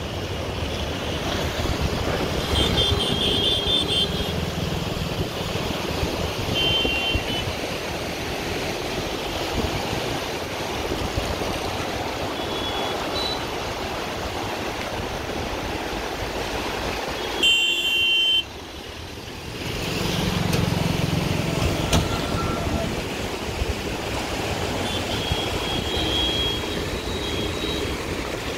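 Steady rushing noise of road traffic and wind, with the floodwater beneath, broken by short vehicle horn toots several times. It dips for a second or two about two-thirds in, just after one of the horn toots.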